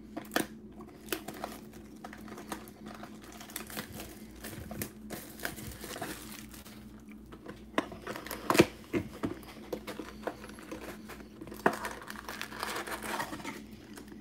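Plastic wrap crinkling and tearing, with cardboard rustles and a few sharp clicks, as a sealed Panini Prizm baseball card box is unwrapped and its lid opened. A denser stretch of crinkling comes near the end.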